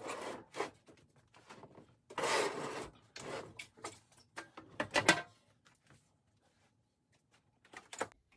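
Vintage Kennedy steel tool chest being handled on a workbench: scraping as it is slid across the bench top, then metal rattling and sharp clicks as its drop front comes off and the lid is opened, loudest about five seconds in, with a couple of last clicks near the end.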